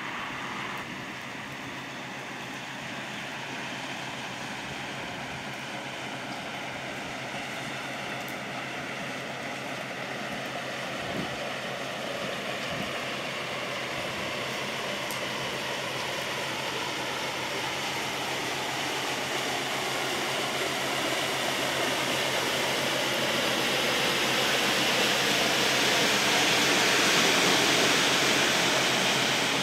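Inland motor cargo ship passing close on a canal: a steady rush of water along the hull with a low engine hum, growing louder as the ship approaches and loudest near the end as it goes by.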